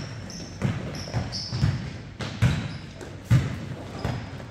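Basketball being dribbled on a court, a bounce roughly every two-thirds of a second, with a few short, high sneaker squeaks.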